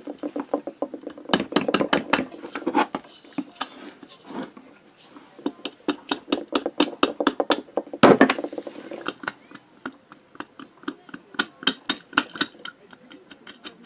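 Quick light metallic clicks and knocks as a stuck 65 cc Airsal cylinder is rocked by hand and tapped with a rubber mallet to work it off its studs, with a louder knock about eight seconds in.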